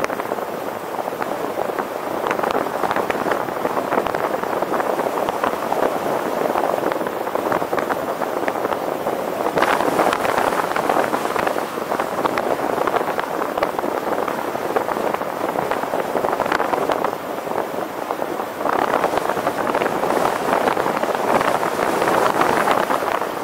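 Steady road and traffic noise of a vehicle moving through city streets, an even rushing sound that swells slightly now and then, with some wind on the microphone.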